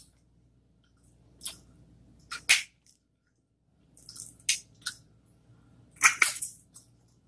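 Crab legs being cracked open by hand and the meat sucked out and eaten: a handful of short, wet crackling and slurping sounds with quiet gaps between, the loudest about two and a half seconds and six seconds in.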